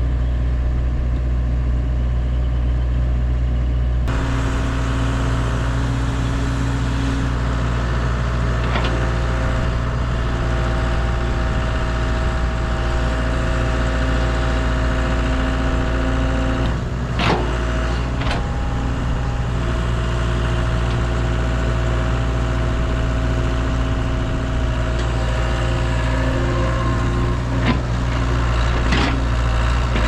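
Engine of heavy digging equipment running steadily, with a whine that shifts in pitch now and then and a few short knocks at intervals.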